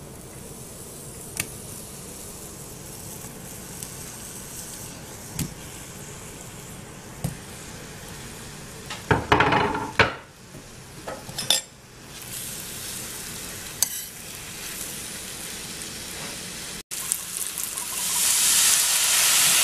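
Halved bananas frying in melted butter in a stainless steel skillet, sizzling steadily, with a utensil now and then clinking and scraping against the pan. Near the end the sizzle grows much louder as Grand Marnier is poured into the hot pan.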